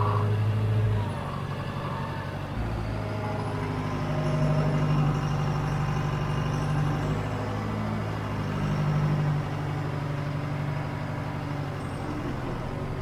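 John Deere 410 backhoe engine running steadily, getting louder and higher twice as it is worked harder while hauling buckets of dirt.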